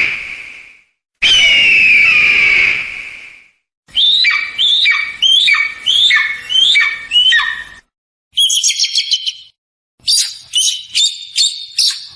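Eagle calls. A long, harsh scream that falls in pitch is followed by a run of about seven short down-slurred calls, roughly two a second, then a quick burst of chattering notes and a last run of short calls. Each sequence is separated from the next by a second or so of silence.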